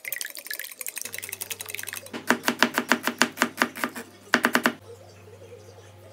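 Eggs being beaten in a glass bowl, a fast run of light clinks against the glass. Then a knife chopping onion on a plastic cutting board in quick, even strokes, about five a second, in two runs with a short break between them.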